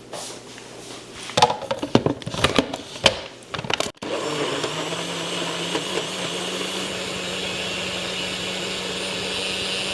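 A few knocks and clatters of things being handled, then about four seconds in a blender motor starts, spins up slightly and runs at a steady whir.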